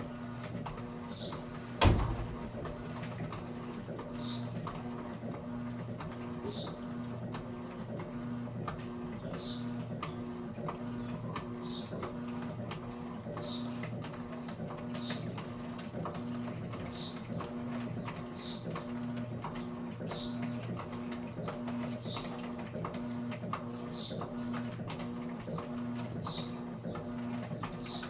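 Electrolux Essential Care 11 kg washing machine running with a steady, pulsing hum and a short high squeak recurring about every one and a half to two seconds. A single sharp knock sounds about two seconds in.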